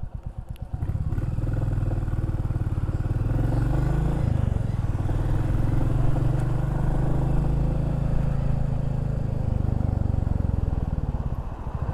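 Motorcycle engine picked up by a microphone inside the rider's helmet: it ticks over, then pulls away about a second in, shifts gear about 4 s in, and runs steadily before easing off near the end.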